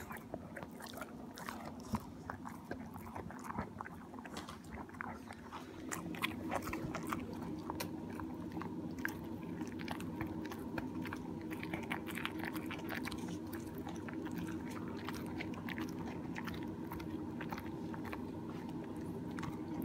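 Dog chewing a Purina DentaLife dental chew stick: repeated wet bites and crunches. A steady low hum comes in about six seconds in.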